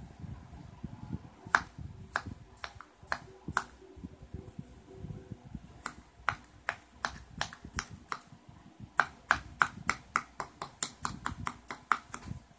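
Plastic spatula slicing through a packed block of kinetic sand in a plastic bowl, its edge clicking sharply on the bowl's bottom with each cut, over soft scraping. The clicks come spaced at first, then faster in the last few seconds.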